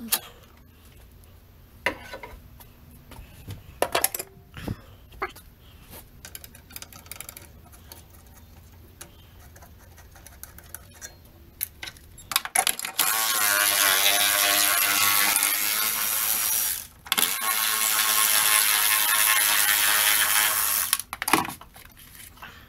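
Scattered light clicks and knocks of tools working on engine-bay parts, then a cordless power tool runs in two bursts of about four seconds each, with a short break between, from about halfway through.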